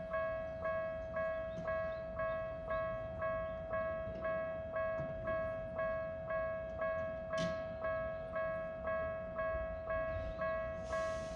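Japanese level crossing's electronic warning bell ringing, about two strikes a second, in a steady repeating rhythm.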